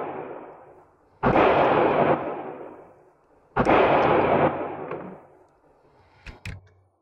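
Two gunshots about two seconds apart, from other lanes of an indoor range, each a sudden loud report with a long echoing tail. Two light clicks come near the end.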